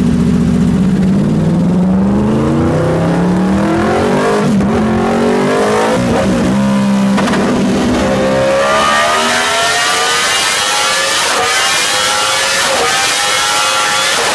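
Yamaha R1's crossplane inline-four, with its uneven firing order, accelerating hard through an Austin Racing exhaust. The pitch climbs and drops back sharply at each upshift, several times over.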